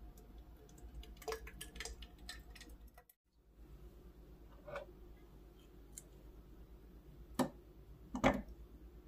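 Scattered light clicks and taps of kitchen handling over a low steady hum, with two sharper knocks near the end.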